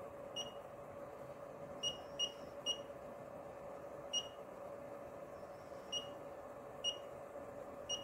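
Function generator (FeelTech FY6900) giving short, high-pitched key beeps as its rotary knob is turned to step the output frequency: eight quick beeps at uneven intervals, over a faint steady tone.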